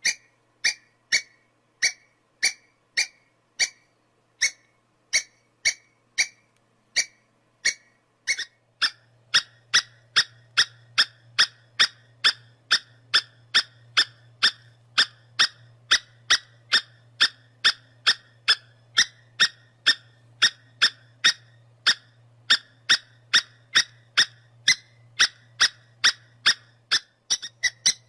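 Squirrel giving a long series of short, sharp, high-pitched chirps. The chirps come about one and a half a second at first and quicken to about two a second about nine seconds in. From that point a faint low hum sits under them.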